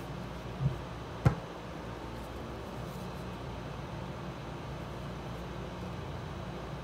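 A cardboard iPhone box handled in the hands: a soft thump, then a sharp tap about a second in, over a steady low background hum.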